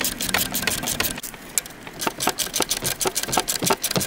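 Ratchet wrench clicking in quick, uneven strokes as the alternator bracket bolts are tightened to set the new serpentine belt's tension.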